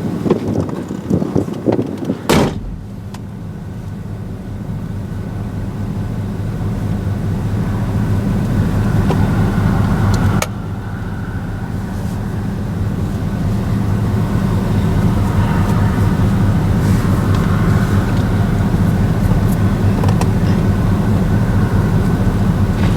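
Vehicle engine and road noise heard from inside the cabin. A steady low hum builds gradually as the vehicle picks up speed, drops suddenly about ten seconds in, then runs on steadily. A single sharp click comes about two seconds in.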